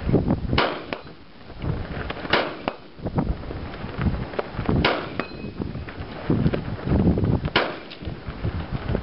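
Four rifle shots fired from a shooting bench, two to three seconds apart, each with a fainter crack just after it. Low wind rumble on the microphone in between.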